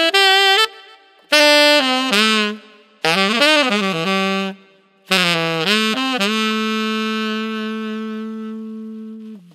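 Solo tenor saxophone playing a melody in short phrases, one of them bending up and down in pitch, then holding a long note for about three seconds that slowly fades and drops away. Recorded close on a large-diaphragm condenser microphone, with compression, reverb and delay applied.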